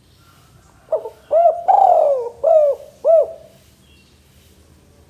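Male spotted dove cooing: one phrase of about five coos starting about a second in, with a longer, falling coo in the middle.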